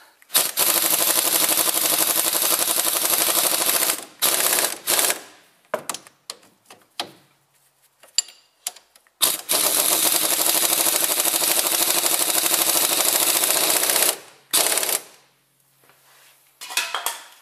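Impact wrench hammering as it runs up the bolts clamping the front strut to the steering knuckle: two long runs of about three and a half and five seconds, each followed by a short burst or two.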